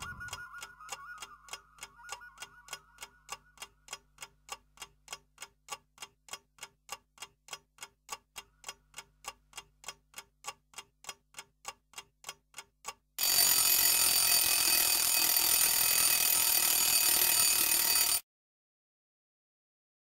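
The last notes of the music fade out into a clock ticking steadily, about three ticks a second. About thirteen seconds in, an alarm clock bell rings loudly for about five seconds, then cuts off suddenly.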